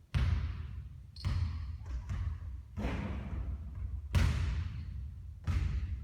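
A basketball bouncing and striking hard: five sharp thuds about a second apart, each ringing out briefly.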